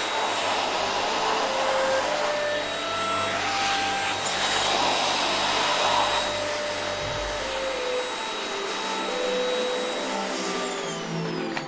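Vacuum cleaner running with a steady whooshing drone and a thin high whine. Near the end it is switched off and the motor whine falls away as it spins down.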